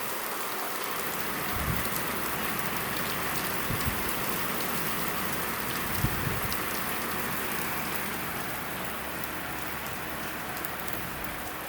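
Heavy rain pouring steadily with no wind, a dense hiss of falling water, with a few soft low thumps about two, four and six seconds in.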